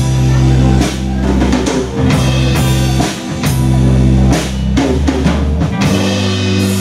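Live rock-pop band playing an instrumental passage without vocals: a drum kit keeps a beat of kick, snare and cymbal hits under heavy bass notes and electric guitar. About six seconds in the band settles onto one sustained chord.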